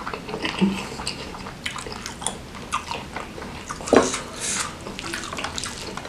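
Close-miked wet squelching and clicking of fingers mixing rice soaked in gulai curry sauce with pieces of chicken satay, with one louder sharp tap about four seconds in.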